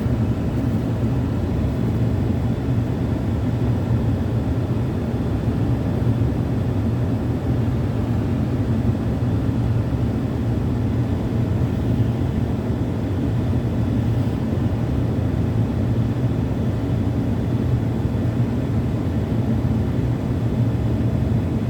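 Truck engine running steadily, a low, even rumble with no change in speed.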